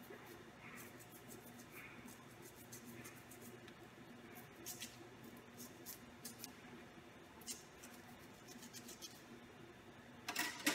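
Small cleaning brush scrubbing a metal Kelly hemostatic forceps in short to-and-fro strokes: faint, irregular scratching, with a louder clatter near the end.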